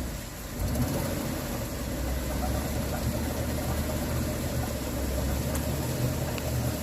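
Truck engine running steadily with a low rumble, coming up louder about half a second in and holding even.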